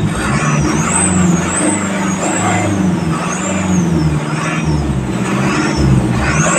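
Isuzu 4HK1 four-cylinder common-rail diesel running after a no-start fault was fixed, its throttle pumped so the engine speed rises and falls again and again, with a high whistle rising and falling along with it.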